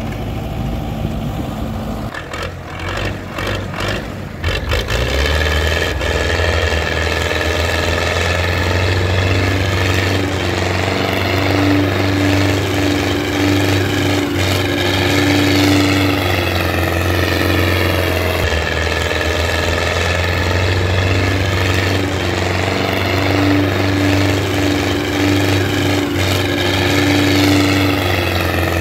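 Belarus 80.1 tractor's four-cylinder diesel engine working under heavy load as it hauls a high-piled sugarcane trolley. After a few knocks in the first seconds, the engine note rises about five seconds in and holds steady, swelling and easing slowly in pitch.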